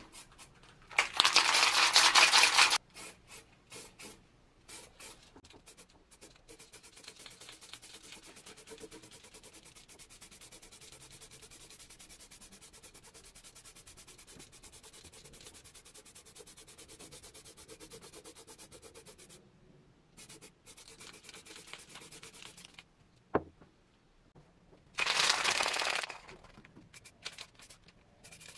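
Aerosol spray paint can hissing: a loud burst about a second in lasting nearly two seconds, a long fainter steady spray after it, and another loud burst near the end. A single sharp click comes shortly before the last burst.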